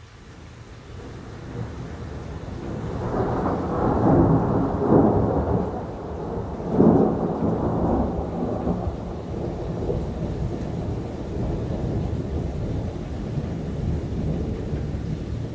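Thunder rolling in. It builds over the first few seconds to loud cracks and peaks around four, five and seven seconds in, then carries on as a long steady rumble, with rain falling.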